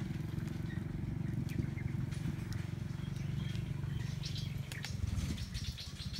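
Mass of honeybees buzzing around an open comb, a dense low hum, with scattered light crackles in the second half.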